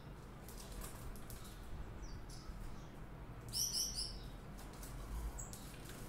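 A caged European goldfinch gives a quick burst of four or five high chirps about three and a half seconds in.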